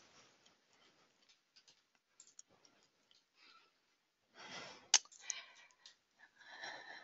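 Near silence for about four seconds, then soft breaths at the microphone with a single sharp mouse click about five seconds in.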